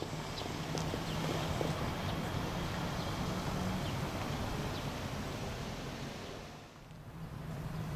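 Outdoor traffic noise: a passing vehicle's engine hum over a general rumble, fading out near the end before the next one comes up.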